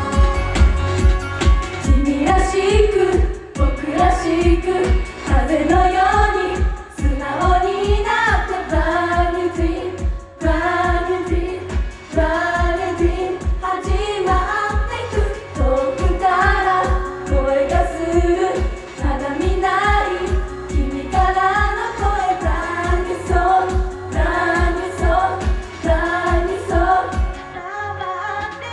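Japanese idol pop song: girls' voices singing the melody over a backing track with a steady kick-drum beat. The singing comes in about two seconds in, and the beat drops out briefly near the end.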